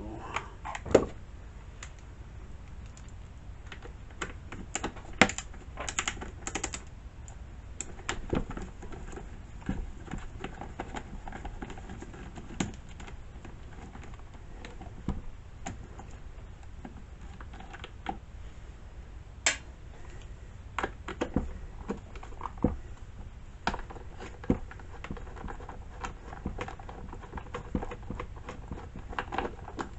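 Scattered, irregular small clicks and knocks of hand work on a chainsaw's plastic top cover and its screws as the cover is taken off.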